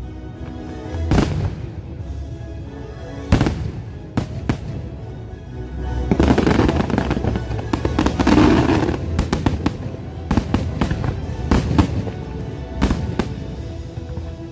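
Aerial fireworks going off in sharp separate bangs, then a dense, louder run of bangs and crackling from about six to nine seconds in, with music playing underneath.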